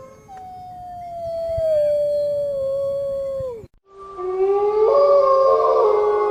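Wolves howling: one long howl that slides slowly down in pitch and drops off at its end, then, after a brief gap just before the middle, several howls overlapping in a chorus.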